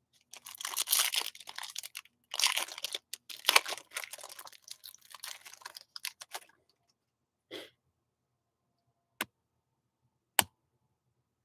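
Foil trading-card pack being torn open and its wrapper crinkled, a crackling rustle lasting about six seconds, then a few single sharp clicks as the cards are handled.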